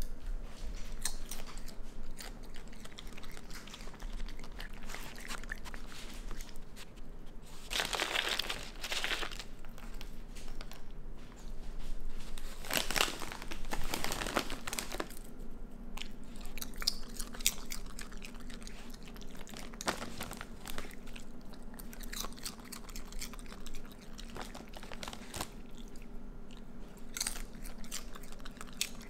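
A raccoon crunching and chewing Cheetos: a run of small crisp crunches, with two louder stretches about eight and thirteen seconds in. A faint steady hum lies underneath.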